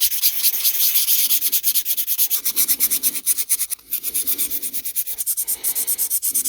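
Sandpaper rubbed in rapid, even back-and-forth strokes, about five a second, over a rusted steel part of a typewriter's platen, a dry rasping scrape used to smooth out rust pits and bring up a shine.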